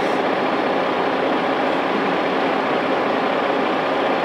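Steady drone of heavy truck engines running at the scene.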